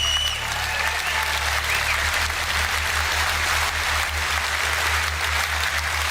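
Audience applauding after a line in a political speech, with a high rising whoop at the start.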